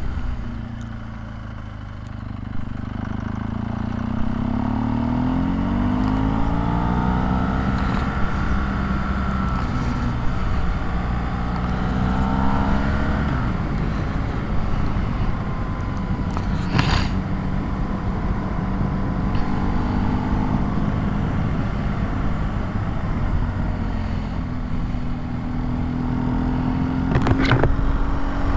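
BMW R1200GS flat-twin boxer engine under way, its revs rising and falling, with wind noise. Two short sharp clicks, one just past halfway and one near the end.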